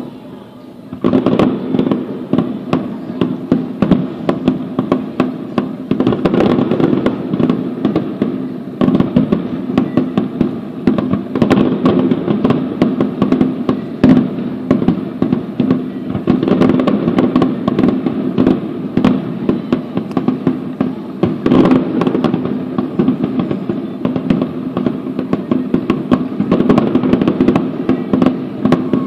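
A fireworks display with shells bursting in rapid, near-continuous succession, starting about a second in. A steady low hum runs underneath.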